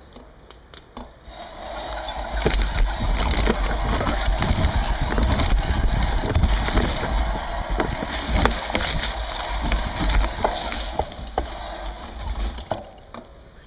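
Mountain bike rolling fast down a rough dirt trail, picked up through a seatpost-mounted camera: steady tyre-and-trail noise with frequent rattles and knocks from the bike and a low rumble. It starts about a second and a half in and dies away near the end as the bike slows.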